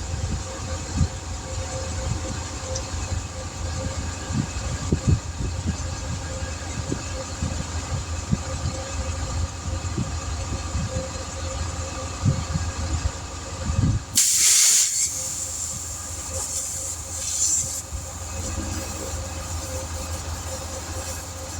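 Compressed air hissing out at a tire's valve stem in a loud burst lasting about a second, then a couple of shorter hisses: air being let in or out while setting tire pressure. A steady machine hum runs underneath.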